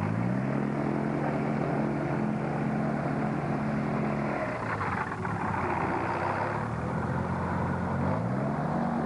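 Propeller-driven microlight powered hang glider trike running on a converted automobile engine. The engine note rises right at the start and holds steady, drops away about four and a half seconds in, then climbs again near the end as the throttle is opened.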